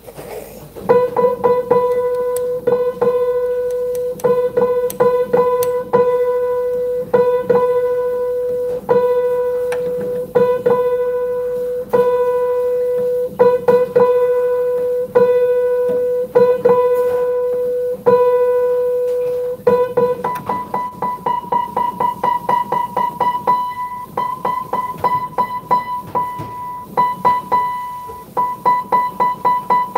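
Upright piano being tuned: a single mid-range note is struck over and over while the tuning hammer sets its pin. About twenty seconds in, the tuner moves to a note an octave higher and strikes it in quicker repeats.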